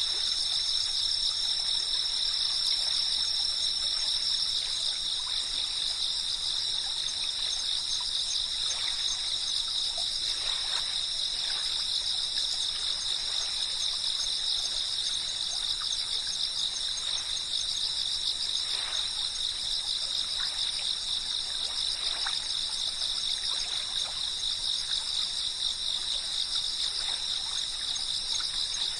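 A dense chorus of insects, such as cicadas, chirping in a continuous high-pitched drone with a fine rapid pulse. A few fainter, lower chirps come and go.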